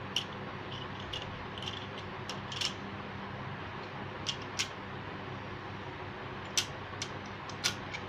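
Plastic modular switch and socket pieces being handled and pressed into a plastic switchboard plate: a run of irregular sharp clicks and small plastic squeaks, over a steady low hum.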